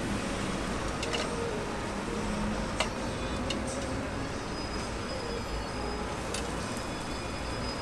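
Steady street traffic noise, with a few short sharp clicks, the loudest about three seconds in.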